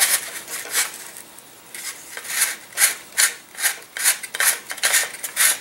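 Sandpaper rolled around a model glider's tail boom, rasping back and forth inside the wooden rear opening of the fuselage, sanding the opening out so the boom fits. Quick strokes come about two to three a second, with a short pause about a second in.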